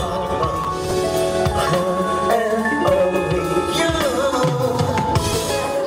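A male pop singer's live vocals through a stage microphone, a drawn-out, wavering melodic line sung over backing music with a drum beat.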